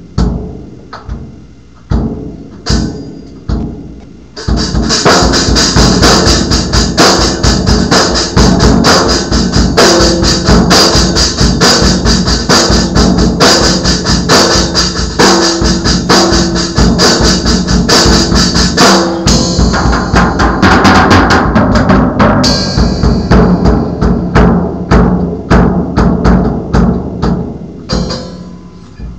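Drum kit played with sticks: a few single, spaced drum strokes, then about four seconds in a fast, continuous beat with cymbals ringing over it, thinning back to scattered strokes near the end.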